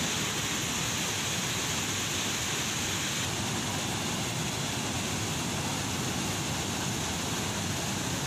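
Floodwater from an overflowing tank pouring over its surplus weir and rushing over rocks: a steady, even rush of water.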